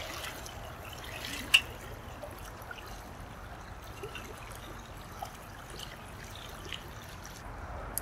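Shallow river water running and trickling steadily, with one sharp click about one and a half seconds in.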